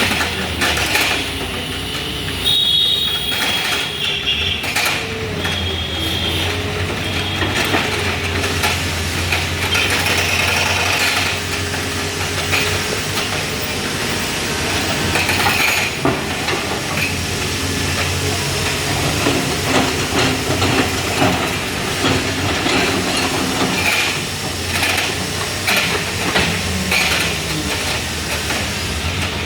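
Excavator at work: its diesel engine running steadily under many irregular metal clanks and knocks, with brief high squeals in the first several seconds.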